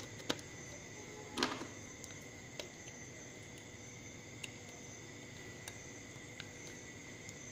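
Faint clicks and a brief scrape from plastic-cased power transistors and a circuit board being handled, as the transistors' legs are pushed into the board, over a steady faint high hum.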